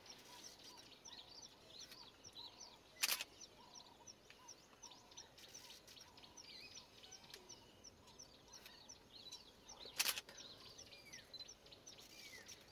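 Faint, busy chirping of small birds in the bush, with two sharp clicks about seven seconds apart.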